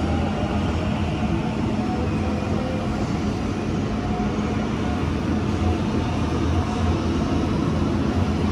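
Sydney Trains Waratah double-deck electric train running past along the platform, a steady rumble of wheels and running gear with a low hum and faint motor tones.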